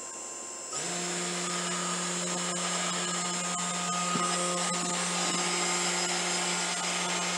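A 3040T CNC router's 400 W spindle motor running at full speed under MACH3 control, a steady high whine with a low hum. It gets abruptly louder just under a second in. Its speed-control voltage reads about 50 V, a little above the 48.8 V full-speed setting.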